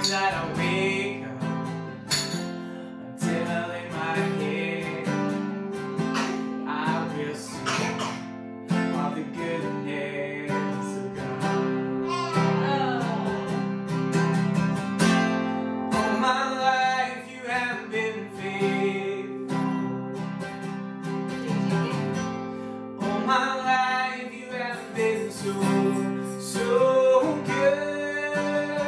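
Acoustic guitar strummed as accompaniment to a man singing a worship song.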